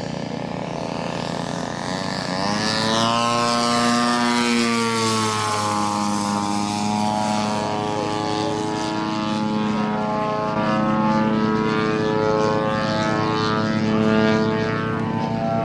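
Propeller-driven engine of a giant-scale radio-controlled aerobatic airplane in flight. Its pitch climbs steeply about two seconds in, then surges and eases repeatedly as the throttle is worked through manoeuvres.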